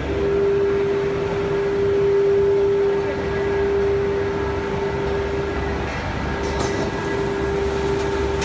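Automatic loading/unloading CNC router machine running: a steady mechanical drone with a constant whine that breaks off briefly about six seconds in.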